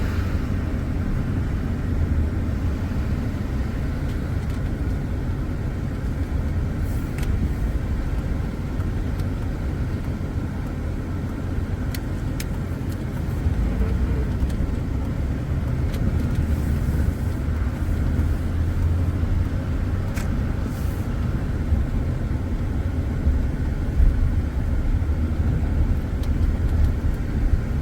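A vehicle being driven, with a steady low rumble of engine and road noise and a few faint clicks.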